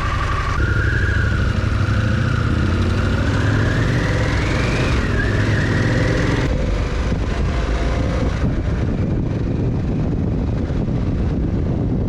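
Harley-Davidson Pan America's V-twin engine pulling away and accelerating, its note climbing, then dropping at a gear change about five seconds in. After that the bike runs on at speed with wind noise over the microphone.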